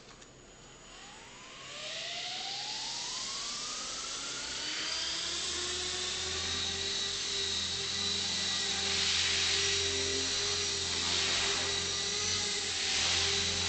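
KDS 450 Quiet electric RC helicopter spooling up: a rising whine from the brushless motor and rotor head over the first few seconds, then a steady whine and rotor hiss at flight speed as it lifts off, swelling a little near the end.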